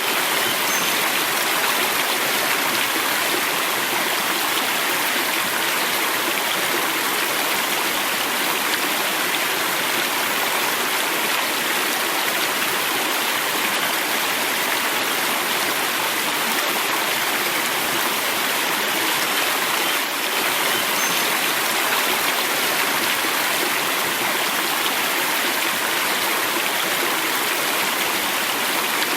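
River water flowing and rushing steadily, a constant even rush with no pauses.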